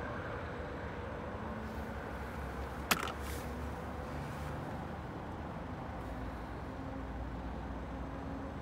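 Steady outdoor road-traffic rumble with faint shifting engine hums, and a single sharp click about three seconds in.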